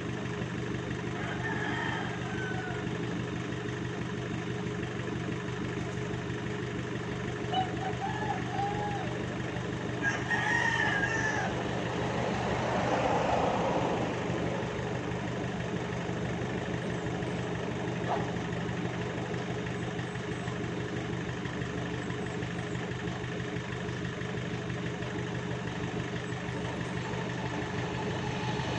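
An engine idling steadily while a rooster crows several times in the background, most loudly about ten seconds in.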